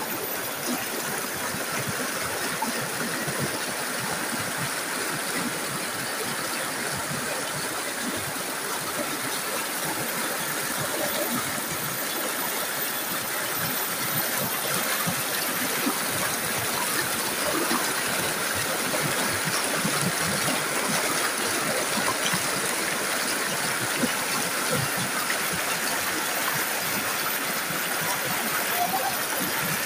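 Rocky stream rushing and splashing over boulders in small rapids, a steady, unbroken sound of water.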